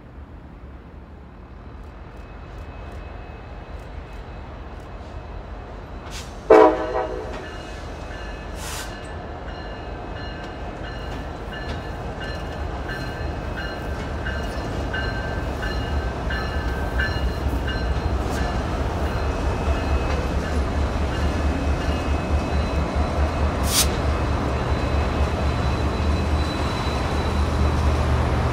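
Union Pacific SD70AH-T4 diesel locomotive approaching and passing at the head of a passenger train, its engine rumble growing steadily louder. A short, loud horn blast sounds about six seconds in.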